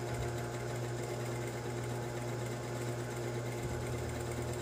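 Juki industrial sewing machine stitching steadily at a gentle pace under light pedal pressure, with a constant motor hum underneath.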